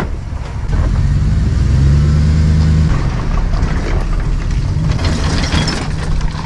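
Chevrolet Silverado pickup engine pulling a boat trailer up a ramp, accelerating under load. The engine note builds for about two seconds, eases off, then rises again near the end.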